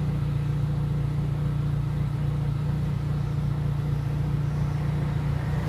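Volkswagen Gol G2's engine idling steadily, just after starting, with an even low hum.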